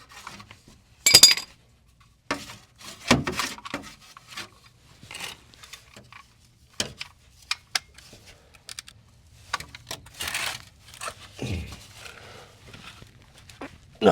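Metal tools and parts clinking and knocking, with scraping and handling noise, while someone works on a car during an oil change. A loud rattle comes about a second in, and there are a couple of duller knocks later.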